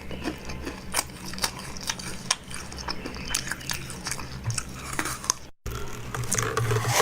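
Close-up eating sounds: a person biting and chewing food, with sharp crunches several times a second. The sound cuts out for a moment a little after five seconds in, then resumes denser.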